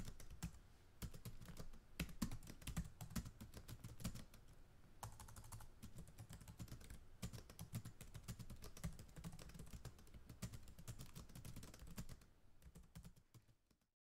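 Faint computer-keyboard typing sound effect: a quick, irregular run of key clicks that fades out near the end.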